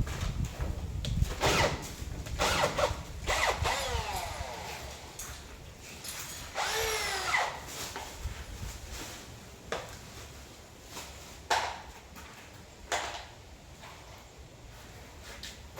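Power drill running in two short bursts, its motor whine gliding up and down in pitch, among several sharp knocks.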